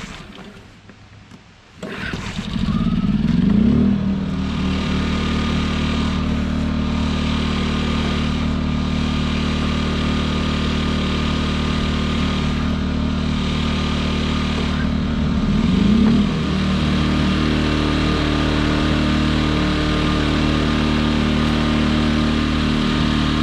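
Small Champion inverter generator engine starting about two seconds in, its pitch rising as it comes up to speed, then running steadily. About sixteen seconds in, a second generator starts the same way and runs alongside it.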